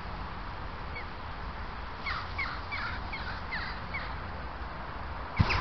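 A group of crows calling: short, sharp calls repeated in loose clusters, busiest about two to four seconds in, over a low steady background rumble.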